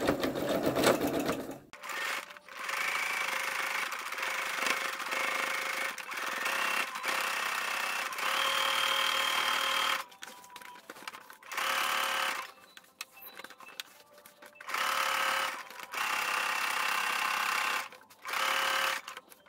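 Singer Quantum Stylist 9960 sewing machine stitching a straight seam through thick fabric, its motor whining steadily. It runs for several seconds, stops, then goes on in short starts and stops. A louder, low noise fills the first couple of seconds.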